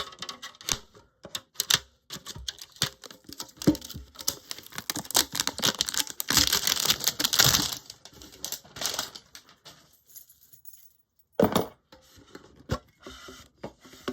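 A metal card tin being handled and unpacked: quick clicks and light metallic rattles, with a stretch of dense rustling of packaging from about six seconds in and a single loud knock near the end.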